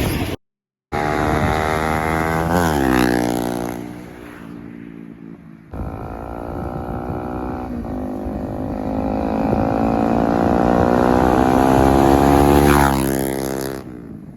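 Bajaj Pulsar NS200's single-cylinder engine through an aftermarket SC Project full-system exhaust, riding past twice in edited clips: each time the exhaust note grows louder as the bike approaches, then drops in pitch as it goes by. The second pass, near the end, is the loudest.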